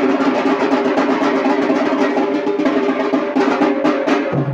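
Rope-laced barrel drum beaten with a stick in a fast, continuous roll, with steady held tones from another instrument sounding under it.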